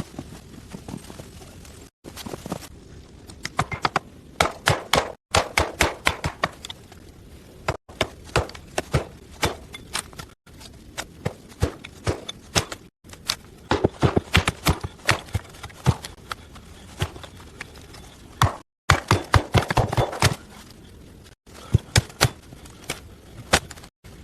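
Rapid runs of sharp knocks, several a second, in short clips broken by sudden brief dropouts.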